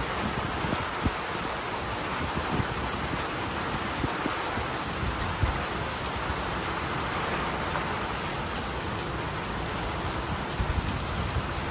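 Heavy tropical wet-season rain pouring down in a steady, even hiss.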